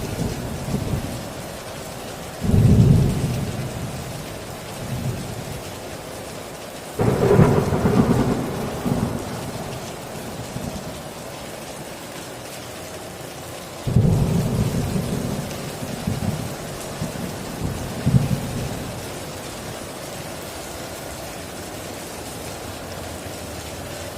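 Heavy rain falling steadily on a tin roof, with thunder breaking in three low rolls about two and a half, seven and fourteen seconds in. Each roll starts suddenly and dies away over a few seconds.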